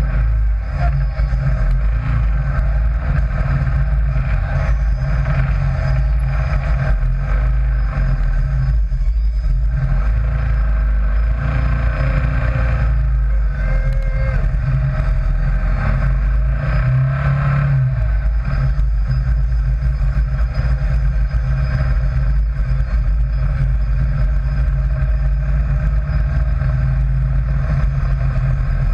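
Sand rail's engine running steadily as it drives, a loud low drone with a brief shift in its tone about two-thirds of the way through.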